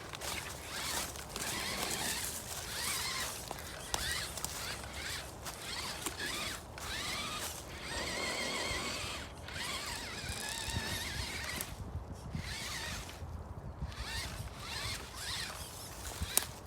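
FTX Ravine RC crawler driving: its electric motor and drivetrain whine in stops and starts, the pitch wavering up and down with the throttle, along with clicks and scrapes from the chassis and tyres working over the ground.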